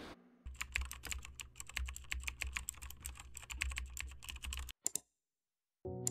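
Fast typing on a backlit mechanical keyboard: a dense run of key clicks for about four seconds, then two quick clicks and a pause. Near the end a steady low tone comes in.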